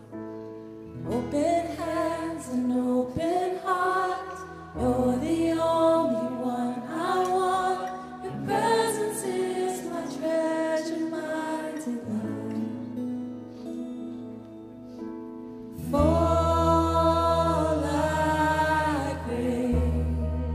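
Live worship band playing a slow song: women singing the melody over keyboard and guitars. About a second in the singing begins, and near the end the band swells with a heavier bass.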